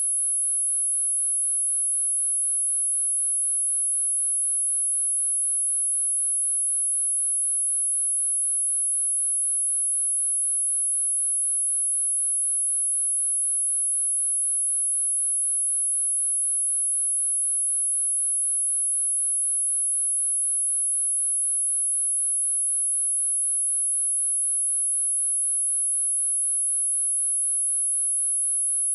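A single high-pitched pure sine tone at 10648 Hz, held perfectly steady in pitch and level. It is a speaker test tone, also used to clear water and dust out of a speaker.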